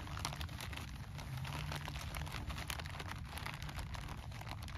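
Plastic bag of zip ties rustling and crinkling as it is handled, a dense run of small crackles and clicks over a low steady rumble.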